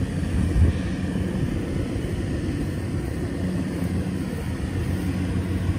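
Tractor engine running steadily with a low drone, with one short knock a little over half a second in.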